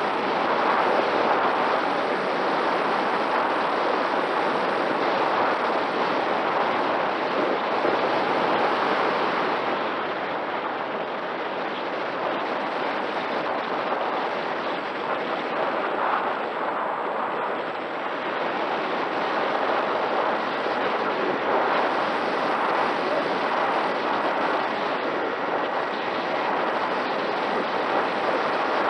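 Airflow over the onboard camera of a Mini Talon RC plane in flight: a loud, steady wind rush that swells and eases gently, with a faint steady tone from its electric motor and propeller underneath.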